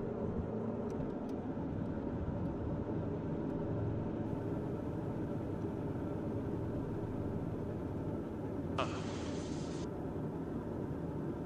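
Beechcraft King Air 200's twin turboprop engines and propellers running with a steady drone, heard from inside the cockpit. A brief hiss lasting about a second comes near the end.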